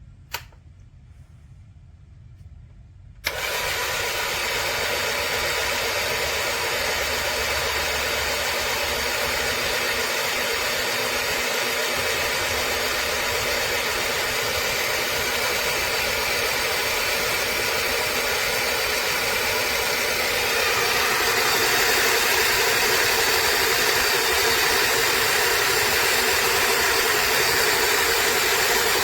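A motor switches on abruptly about three seconds in and then runs steadily, getting a little louder about two-thirds of the way through. A single sharp click comes just before it.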